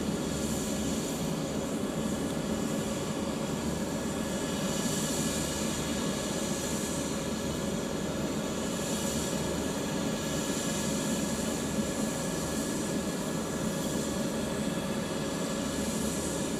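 Eurocopter EC135 (Airbus H135) helicopter running on the ground, a steady turbine whine over rotor noise.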